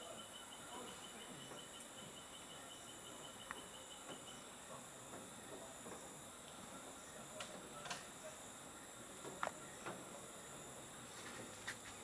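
Faint background insect chirping, a rapid, evenly pulsed high note that stops about four and a half seconds in, with a few soft clicks later on.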